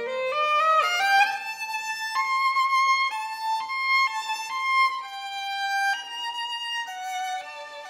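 Background music: a solo violin playing a slow melody, opening with a quick rising run and then moving through held notes.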